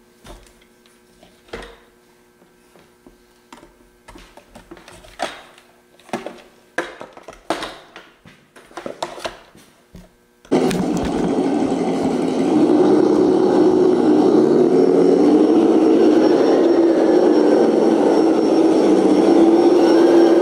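Clicks and knocks of a plastic RC truck body being handled and fitted onto the chassis. About halfway in, an ESS-Dual engine sound simulator starts playing a loud, continuous simulated engine sound through the 1/10-scale electric truck's speakers, rising and falling in pitch as the truck drives.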